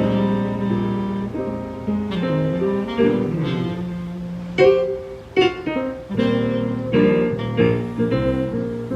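Live instrumental music: a keyboard playing chords under a tenor saxophone line, with a few sliding notes.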